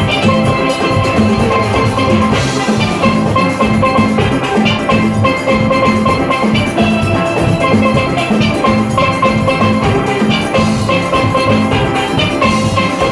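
A steel orchestra plays a fast soca tune live, with many steelpans ringing out the melody and chords over a steady rhythm of drums and percussion.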